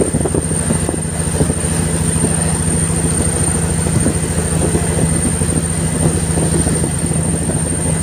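Fishing boat's engine running steadily under way, a continuous low drone with a fast even pulse, under a steady rushing hiss of water and wind.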